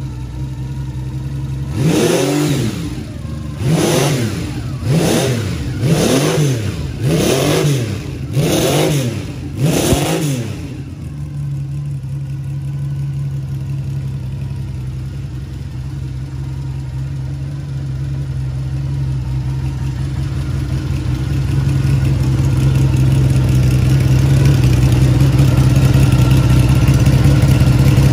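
Benelli 750 Sei's air-cooled inline six-cylinder engine revved with a series of quick throttle blips, each rising and falling in pitch. About ten seconds in it settles to a steady idle, which grows louder in the second half.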